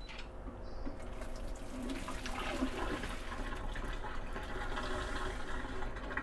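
Cooking water poured from a pot into a perforated metal colander of boiled cabbage, splashing and draining steadily.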